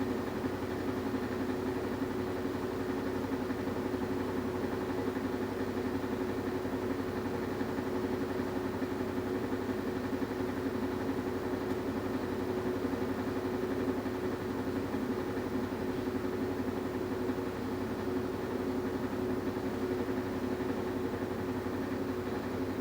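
Washing machine running with a steady, unbroken motor hum and a constant mid-pitched tone.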